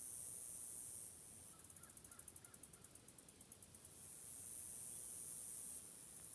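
Faint forest ambience: a high-pitched, rapidly pulsing insect chorus that swells into a steadier buzz twice, with a few faint, short distant bird calls about two seconds in.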